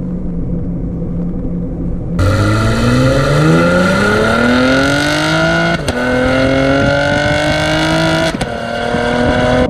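2018 Chevy Camaro RS's 3.6-litre V6 engine cruising, then put to full throttle about two seconds in: the revs climb steadily and drop abruptly twice as the 8-speed automatic upshifts, climbing again after each shift.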